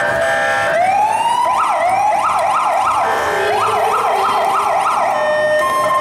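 Electronic police siren: a rising wail about a second in, then fast, repeated up-and-down yelp sweeps, ending in steady held tones.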